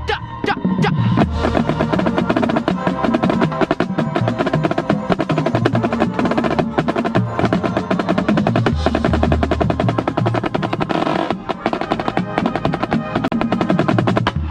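Marching drumline playing: rapid snare-drum strokes and rolls over low bass-drum hits, with held pitched notes sounding along.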